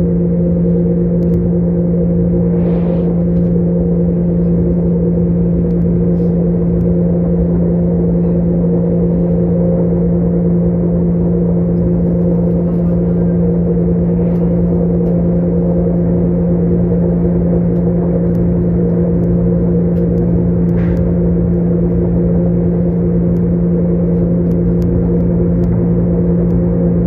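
Passenger train running steadily, heard from inside the carriage: a loud constant drone with a few higher steady hum tones over a rumbling track noise.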